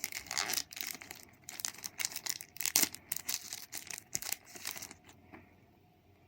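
Wrapper of a Match Attax trading-card pack being torn open and crinkled by hand: a dense run of irregular crackles and rips that dies away about five seconds in.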